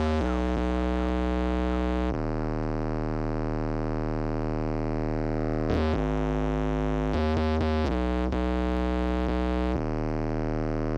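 Big beat electronic music: held, distorted synthesizer chords over a deep bass, shifting chord every few seconds, with a few short hits near the middle.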